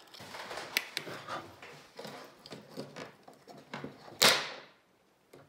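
Plastic shell and circuit board of an old Apple USB charger being handled and worked at to free the board: a run of small plastic clicks and scraping rubs, with one loud sharp click about four seconds in.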